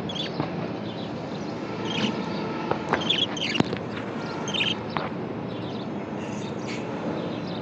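Budgerigar chirping: a handful of short, high chirps scattered over a steady background hiss.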